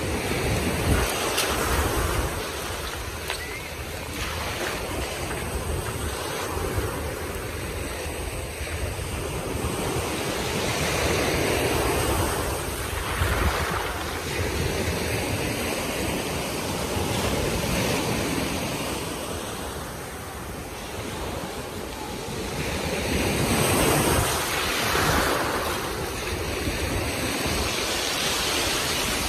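Sea waves breaking and washing up a shingle beach, the surf swelling and easing every few seconds, with wind buffeting the microphone.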